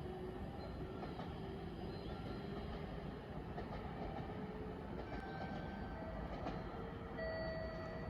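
Electric train running at the station platform: a steady rumble with short, faint whining tones that shift in pitch.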